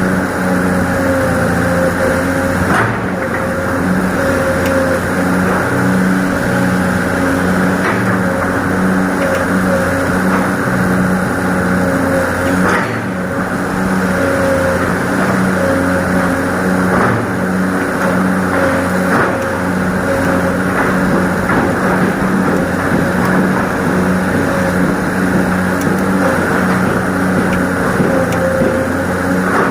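Excavator's diesel engine running steadily while digging soil, with a few short clunks scattered through, about every few seconds.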